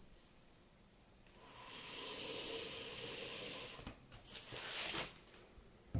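Tissue paper rustling in a cardboard shoebox as a shoe is lifted out: a steady rustle lasting about two seconds, then a few shorter rustles, and a brief knock near the end.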